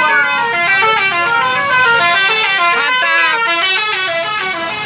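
Bus's Basuri telolet multi-tone horn playing a quick tune, its notes stepping up and down every fraction of a second with several horn tones sounding together.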